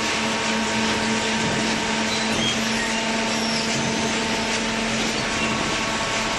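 Automatic hydraulic cardboard baler running: a steady machine noise with a constant hum from its motor and hydraulic pump.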